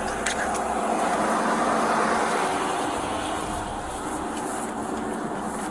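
Road noise from a vehicle passing on a highway: a steady rush of tyres and engine that swells to its loudest about two seconds in, then slowly fades.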